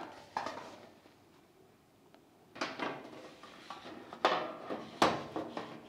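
Sheet-metal cabinet panel being handled and fitted against the cabinet frame: a few short metallic clanks and rattles, the loudest about four and five seconds in.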